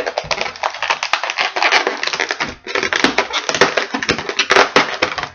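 Inflated latex 646 twisting balloon squeaking and rubbing under the hands as it is twisted into a pinch twist: a scratchy run of squeaks and crackles, with a short lull about two and a half seconds in.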